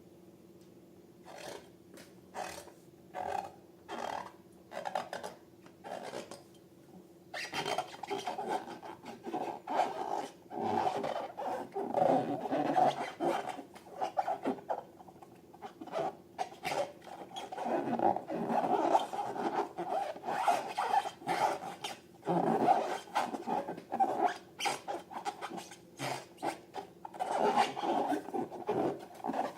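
Slime being worked by hand, sticky squishing and crackling. First a few separate squeezes about a second apart, then a dense, continuous run of small crackles and clicks from about a quarter of the way in.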